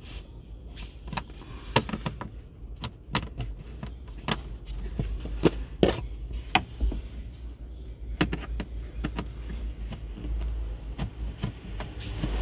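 Scattered irregular clicks and light knocks of a Phillips screwdriver and screws as a plastic interior trim panel is screwed back in place.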